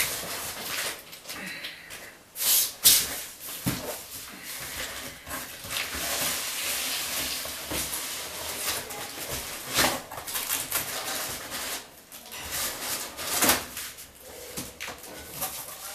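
Cardboard scraping and rustling as a boxed TV is slid out of a large corrugated shipping carton, with several sharp knocks and thuds of the boxes, the loudest about three seconds in, near ten seconds and near the end.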